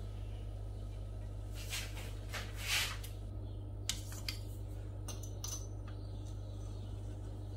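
Quiet handling sounds on a kitchen counter over a steady low hum: two brief rustling swishes, the louder one about three seconds in, then a few light clicks as a metal ruler is laid on rolled fondant.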